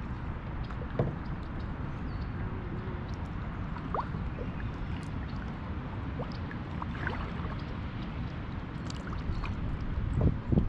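Kayak drifting on still water: faint water gurgling and scattered small clicks and knocks over a low steady rumble, with a couple of louder knocks near the end.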